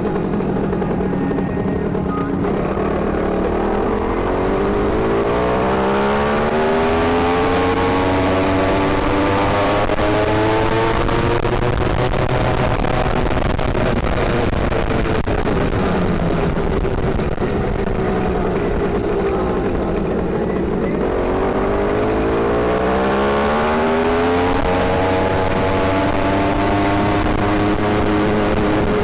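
Small gas engine of a motorized bicycle, geared with a 40-tooth rear sprocket, running under way. It revs up about two seconds in, eases off in the middle, then revs up again near the end. It runs at high revs, as this gearing makes it do.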